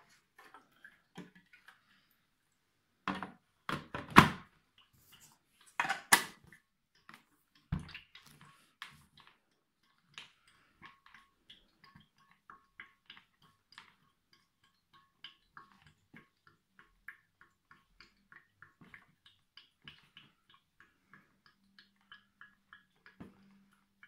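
Hard plastic knocks and clatter as an ultrasonic humidifier's water tank is handled and fitted onto its base: a cluster of knocks a few seconds in, the loudest about four seconds in, more around six and eight seconds. After that comes a long run of small, quick ticks.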